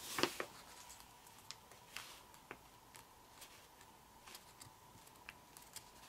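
Faint crinkles and small clicks of origami paper (kami) being creased and shaped between the fingers, a few together just at the start and then scattered single ticks.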